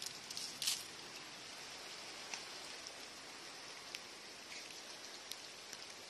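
Rain falling in a steady hiss, with scattered sharp ticks, the loudest of them in the first second.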